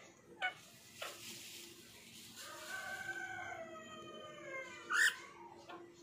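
Indian ringneck parakeet calling: a drawn-out call of about two seconds that sags slightly in pitch at the end, then a loud, short, sharp squawk near the end. Two short clicks come in the first second.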